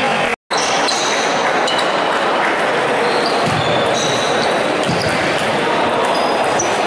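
Table tennis rally: the celluloid ball clicking off bats and table over the steady din of a busy hall with many matches, and short high squeaks of shoes on the wooden floor. The sound cuts out for an instant just after the start.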